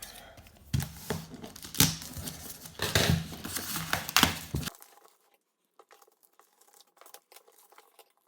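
A parcel's packaging being torn and crinkled open by hand, a quick series of sharp rips and rustles. About halfway through it stops abruptly and goes nearly quiet, with only a few faint clicks.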